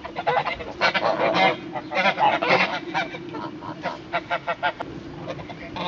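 Domestic white geese honking, many overlapping calls in quick runs. The calls are loudest and densest in the first three seconds, then come shorter and more spaced out.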